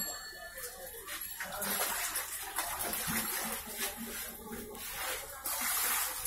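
Water splashing and sloshing in basins as fish are washed by hand, an uneven wet hiss that swells louder at times.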